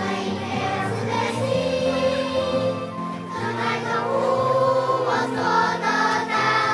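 A group of children singing a song together over an instrumental accompaniment with held bass notes.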